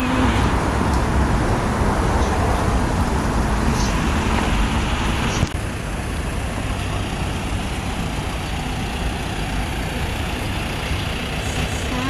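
Street traffic noise: a steady low rumble of vehicle engines and road noise. It cuts off abruptly about five and a half seconds in and gives way to a slightly quieter, steady traffic hum.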